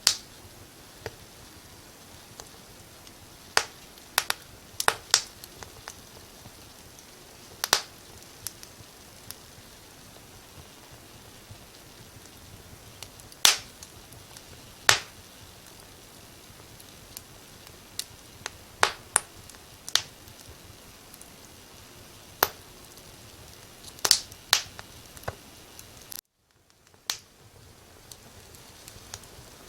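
Wood fire crackling: sharp, irregular pops and snaps, a few seconds apart and sometimes in quick pairs, over a steady soft hiss. About 26 seconds in, the sound cuts out to silence for under a second and then fades back in.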